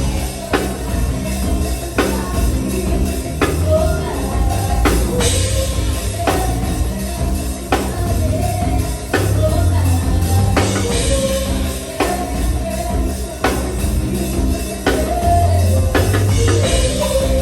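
Live band music: a drum kit keeping a steady beat under a heavy bass line, with a voice singing over it.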